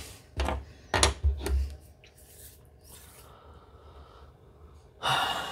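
Metal hand tools, digital calipers and a hobby knife, being picked up and set down on a wooden desk strewn with spilled sand. A few knocks and gritty scrapes come in the first second and a half, then only faint handling sounds.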